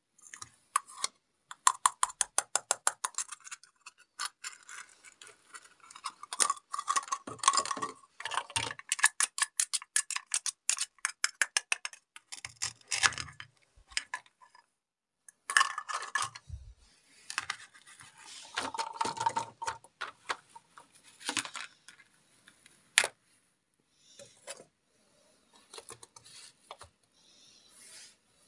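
A plastic toy knife tapping and clicking on a plastic cutting board and toy fruit in quick runs of taps, with scraping and light knocks as the plastic fruit pieces are pulled apart and set down on a plastic plate. One sharp click stands out about three-quarters of the way through, and it grows quieter near the end.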